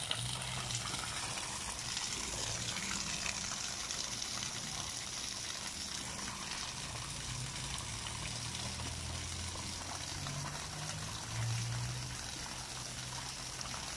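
Small ornamental waterfall splashing down a rock wall into a pond, with a fountain spraying into a stone basin: steady running and splashing water, with a low hum underneath.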